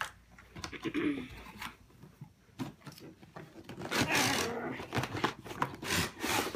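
Large cardboard toy box with a plastic window being handled and shifted: uneven rustling and scraping with a few light knocks, busiest about four seconds in.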